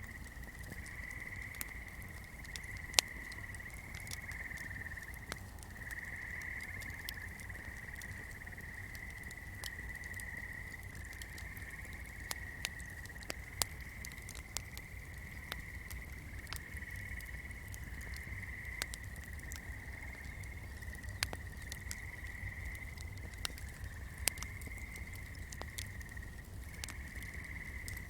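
Swamp chorus: a steady, slightly wavering high trill carries on throughout, with sharp irregular crackles from a burning candle scattered over it, the loudest about three seconds in.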